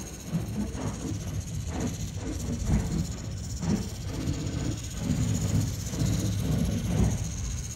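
1/5 scale Thunder Tiger Ducati electric RC motorcycle running on asphalt, its motor and tyres making an uneven noise that swells and fades.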